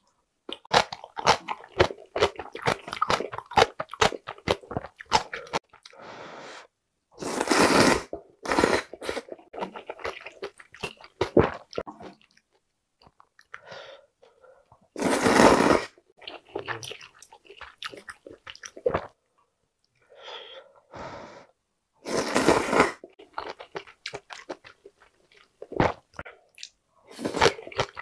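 A person eating glass noodles and beef in soup: wet chewing and mouth clicks, with about four loud, second-long slurps of glass noodles.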